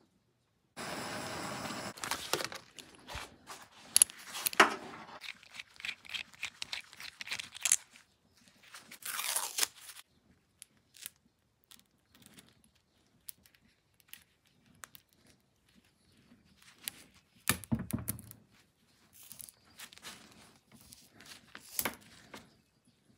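Gloved hands handling an AN10 braided oil hose and its fittings: a short steady whirr about a second in, then irregular scrapes, small metal clicks and tearing sounds with quiet gaps.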